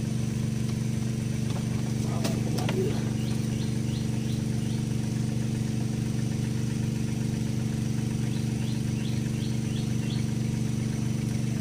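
A motor hums steadily at one even pitch. Two short runs of high chirps come through it, one a few seconds in and one near the end, and there is a brief knock about two seconds in.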